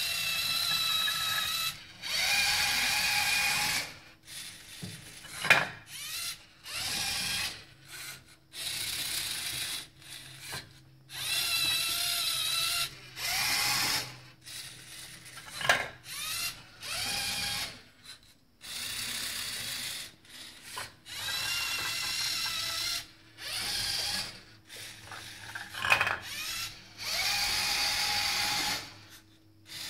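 LEGO Mindstorms NXT servo motors and their gear trains whirring in repeated bursts of one to two seconds, with short pauses between, as the robot moves its gantry and gripper. A sharp click stands out about every ten seconds.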